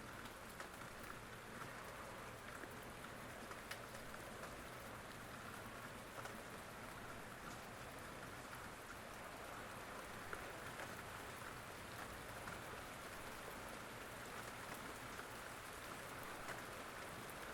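Steady rain falling on a surface, a soft even patter with scattered individual drops ticking.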